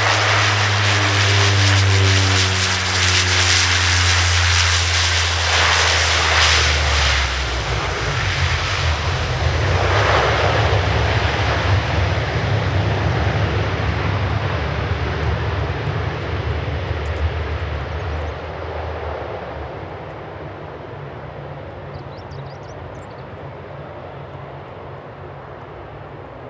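Saab 340B turboprop landing, its two General Electric CT7 engines and propellers droning and falling in pitch as it passes and touches down. A broad rushing roar swells twice in the first ten seconds, then the sound fades steadily as the aircraft rolls away down the runway.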